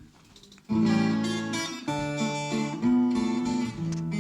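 Acoustic guitar strumming the introduction to a Russian romance in waltz time, starting suddenly about two-thirds of a second in after a near-quiet pause, with the chords changing about once a second.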